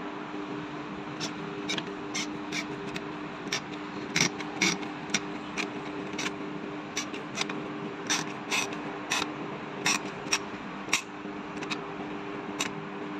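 Irregular sharp metallic clicks and taps as a flat screwdriver pries at the end bell of a Carrier condenser fan motor beside its shaft, working the housing open to reach the bearing. A steady low hum runs underneath.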